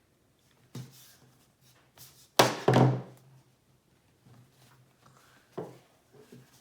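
Cutting open a soft foam squishy toy: several dull thunks as the blade goes through and knocks the surface beneath, the loudest two close together about two and a half seconds in.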